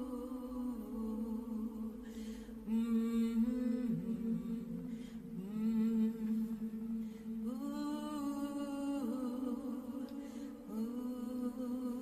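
Slow vocal chant of long held notes that step between a few pitches, with a short breathy syllable onset every few seconds.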